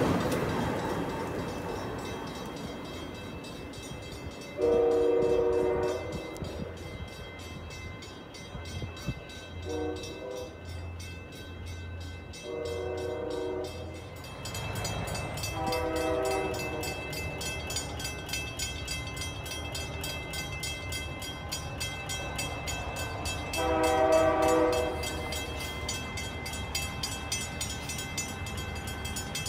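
Rumble of a passing Amtrak Acela train set fading away, then a multi-chime train horn sounding five separate blasts, the first about five seconds in and the loudest.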